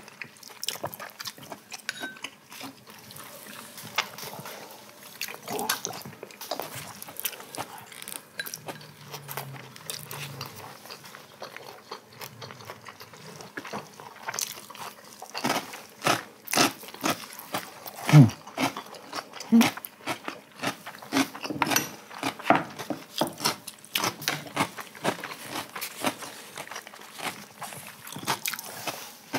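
Two people eating a Korean home meal: chewing and crunching mouthfuls, with chopsticks and spoons clicking against bowls and plates. The clicks come thicker in the second half.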